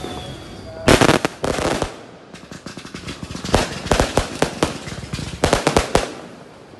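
Aerial fireworks going off: a cluster of loud bangs about a second in, then a run of rapid pops and bangs, with further close-set clusters around the middle and near the end.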